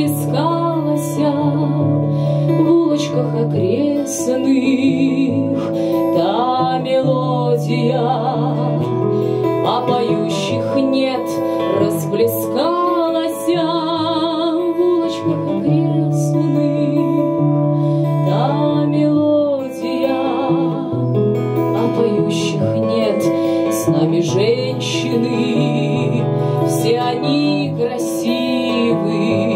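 A live acoustic song: a woman singing over a strummed acoustic guitar, with piano and saxophone playing along.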